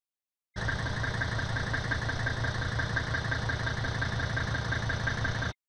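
Mercedes-Benz W126 sedan's engine running steadily, with an even low pulsing. It cuts in about half a second in and cuts off suddenly near the end.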